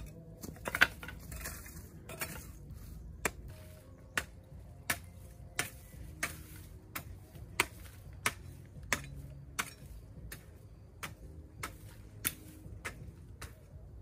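Hoe chopping into soil, a sharp strike about every two-thirds of a second. The strike a little under a second in is the loudest.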